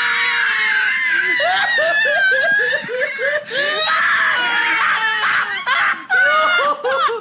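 Man laughing wildly and shrilly: high, screaming laughter that breaks into rapid bursts of ha-ha-ha about four or five a second, twice.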